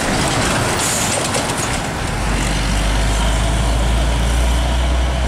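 Hino 500 six-wheeler box truck's diesel engine labouring as it climbs through a sharp bend, with a deep steady drone from about two seconds in. A short hiss comes about a second in.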